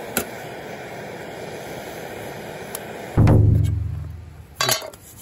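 Cassette-gas camping stove burner hissing steadily under a mess tin of cooking rice, with a click early on. About three seconds in the hiss stops and a loud, deep drum-like boom rings and fades over about a second and a half, followed by a short clatter near the end.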